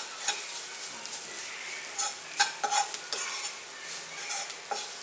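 Browned sliced onions sizzling in oil in a nonstick kadai while a steel spoon stirs them, scraping the pan with irregular clinks.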